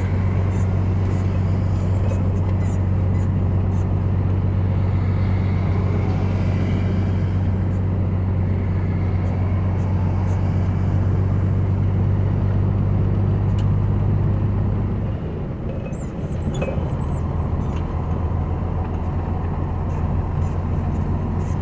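Steady low engine drone and road noise inside a moving vehicle's cabin in heavy rain. About fifteen seconds in, the steady engine note drops away and the sound dips briefly before settling again.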